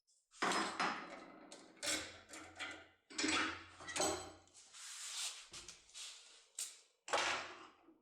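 Metal lock-opening tool being worked in a door lock cylinder: irregular sharp clicks and knocks with scraping and rubbing in between.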